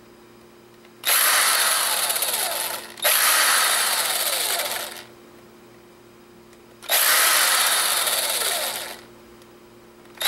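Cordless impact driver running in three bursts of about two seconds each, the first two back to back, driving screws out of a camera's casing; each burst starts loud and tails off.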